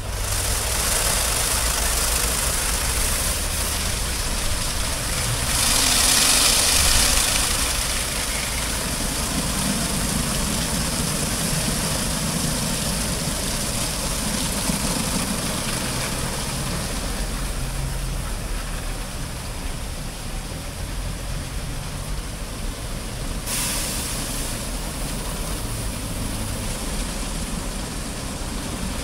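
Automatic rollover car wash gantry running: water jets hissing and spinning brushes scrubbing a car over the steady hum of the gantry's motors, with a louder surge of spray about six seconds in.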